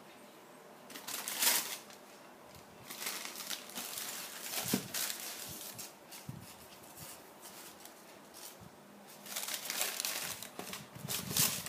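Shoebox tissue paper crinkling as hands fold it back off the shoes, in three bursts of rustling with a few light knocks between.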